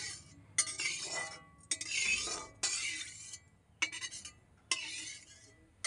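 A utensil scraping and swirling around the inside of a granite-coated wok, spreading a little oil over its surface. It comes as a series of about six short rubbing strokes.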